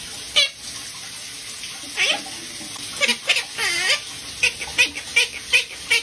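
Pet parrot making high warbling calls and short chirps, ending in a quick run of about three chirps a second, over steady running tap water.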